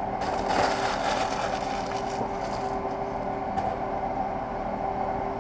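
Paper rustling for about two and a half seconds as a fast-food fry carton and its paper bag are handled and set down, over a steady low hum of machinery.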